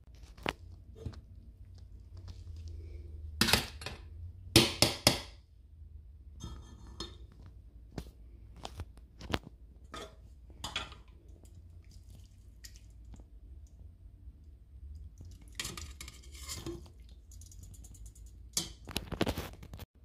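Cooked apple pulp being pressed and scraped through a stainless mesh sieve, wet squishing and scraping with scattered sharp knocks and clinks of utensils against the sieve, glass measuring cup and pot. The loudest knocks come in a quick cluster about four to five seconds in.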